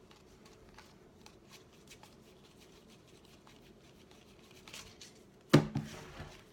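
Trading cards handled and flipped, with faint soft clicks, then a sudden thump with a couple of smaller knocks about five and a half seconds in, as something is set down or knocked against the table.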